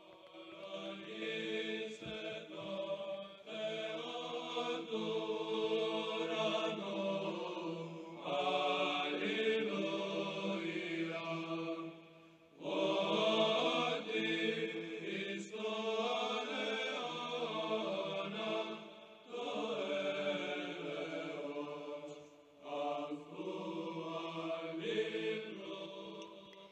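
Orthodox-style liturgical chant by voices singing together, in several long, slow phrases with short breaks between them.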